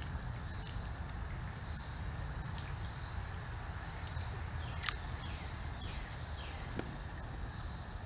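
Steady, high-pitched chorus of insects trilling without a break, over a low rumble, with a faint click about five seconds in.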